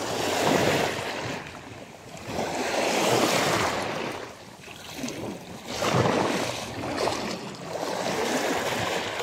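Waves washing in on a choppy sea, the wash rising and falling in swells about every three seconds.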